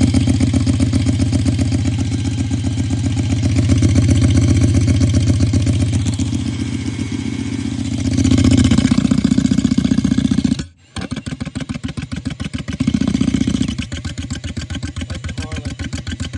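An engine running with an even pulsing beat, its level swelling up and down. About ten and a half seconds in it cuts out for a moment, then runs on with slower, more separate beats.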